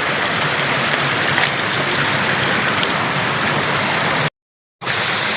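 Small waterfall's water rushing and splashing in a steady, loud, even roar. The sound cuts out completely for about half a second near the end, then comes back.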